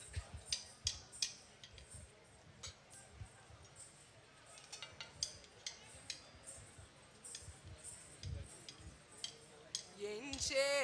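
Scattered light clicks and metallic clinks, irregular and fairly quiet, with no rhythm to them. Near the end a male voice starts singing.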